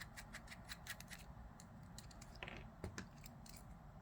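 Faint, irregular small clicks of a T8 Torx driver turning out the body screws of a 3D-printed plastic knife prototype, with a short scrape about two and a half seconds in.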